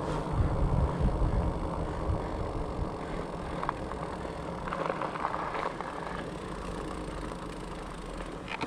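Fatbike tyres rolling on asphalt: a steady road hum with a low rumble.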